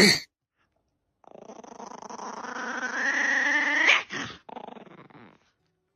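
A dog's drawn-out vocalization that rises in pitch and grows louder for about three seconds, then breaks off, followed by a couple of short, fainter sounds.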